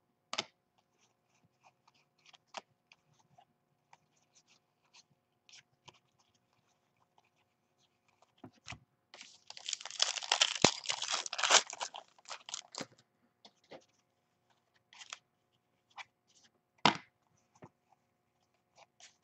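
A trading-card pack's foil wrapper is torn open and crinkled for about three seconds near the middle, the loudest sound here. Scattered light clicks and snaps of cardboard cards being handled come before and after it.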